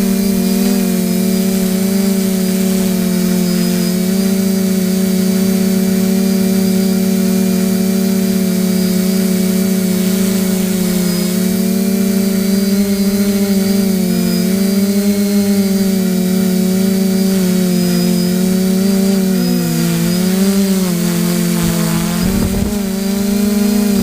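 A steady motor hum with one strong low tone and several higher ones, wavering slightly in pitch and dipping briefly near the end.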